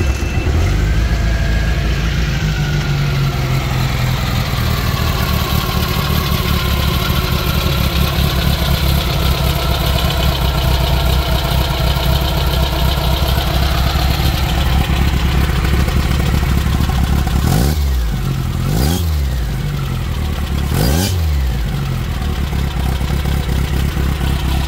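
Air-cooled VW flat-four engine of a 1965 Meyers Manx dune buggy, just started, idling steadily through a Suzuki GSX-R titanium motorcycle silencer. Near the end it is blipped three times, each rev rising and dropping back to idle.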